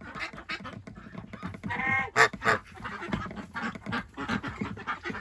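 Ducks quacking in quick, overlapping bursts, with a goose giving a short honk about two seconds in, followed at once by a single sharp loud sound.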